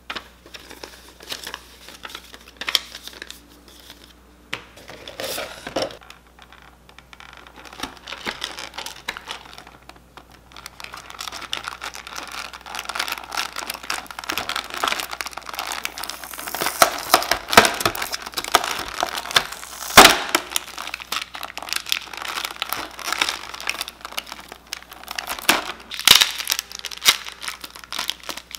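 Clear plastic packaging being handled: the thin plastic blister tray and a sealed plastic bag crinkle and crackle in dense, irregular clicks, after a folded paper instruction sheet rustles. A single sharp crack stands out about two-thirds of the way through.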